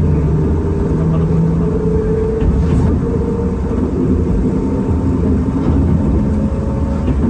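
Enoden electric train running along the line, heard from inside the front car: a steady rumble of wheels and motors with a low hum that shifts in pitch.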